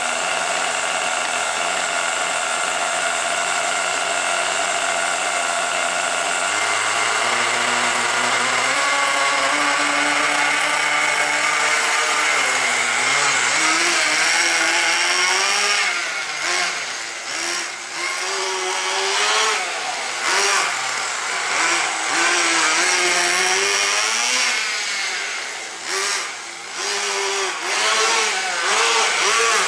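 Tamiya TGX 1/8-scale RC car's small nitro glow engine idling steadily, then revving up about six seconds in. For the rest of the time it rises and falls in pitch over and over as the car speeds up and slows down, its level dipping now and then in the second half.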